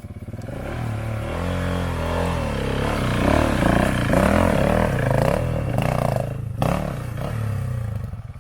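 Dual-sport motorcycle engine revving up and down as the rider works the throttle, its pitch rising and falling repeatedly, with a brief drop about six and a half seconds in.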